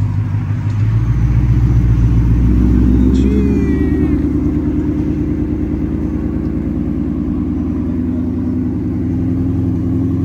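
Ford Mustang GT's 5.0 V8 engine running steadily at low revs as the car drives slowly, its note shifting about a second in. A brief high squeak falls in pitch about three seconds in.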